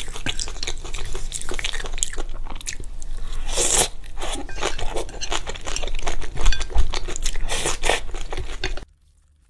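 Close-miked eating: crunching and chewing of fried skewer food and spicy fire noodles, with a short slurp of noodles about three and a half seconds in. The eating sounds stop abruptly near the end.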